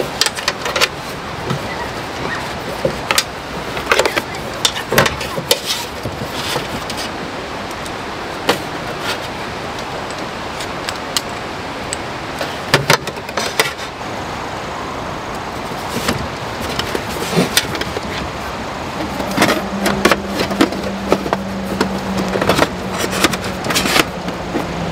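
Camping gear being moved around and set down in the metal drawer of an aluminium aircraft galley cabinet: scattered clicks, knocks and rustles over a steady background hiss, coming thicker near the end, when a low steady hum also joins.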